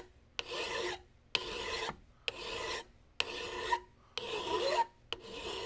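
Flat hand file pushed across the soldered muzzle end of side-by-side shotgun barrels clamped upright in a vise, cutting down excess solder in about six strokes roughly a second apart. The barrels stick up a long way out of the vise, so the file chatters on the strokes.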